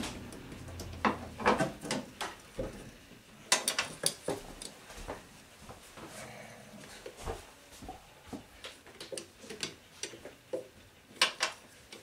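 Scattered clicks, taps and knocks of hands and a tool working on a washing machine's drum motor while a carbon brush is being removed, with a few sharper knocks about a third of the way in and near the end.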